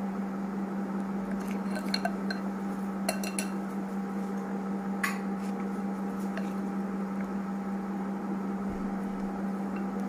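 A spoon clicking lightly a few times against a plastic container while dropping and spreading cake batter, over a steady low hum.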